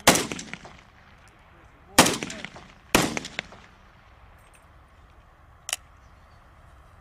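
Three single gunshots from a Kalashnikov-pattern assault rifle, the second about two seconds after the first and the third a second later, each trailed by a short echo. A shorter, quieter crack comes near the end.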